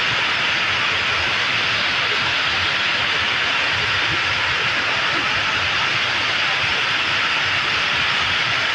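Heavy rain and rushing rainwater: a loud, steady, even hiss that does not change.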